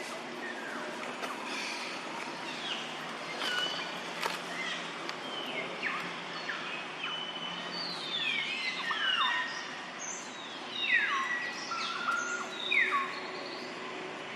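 Baby macaque squealing: a run of short, high calls that each fall steeply in pitch, coming thick and fast and loudest near the end.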